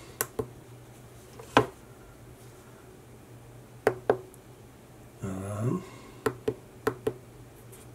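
A scattered series of short, sharp clicks and taps from handling the wand probe of a Sigma Metalytics silver verifier and pressing its keypad buttons, ending in a quick run of five evenly spaced clicks. About five seconds in there is a brief hum from a man's voice.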